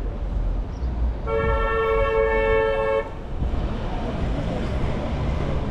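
A vehicle horn gives one steady honk of almost two seconds, starting about a second in. Low street traffic rumbles underneath.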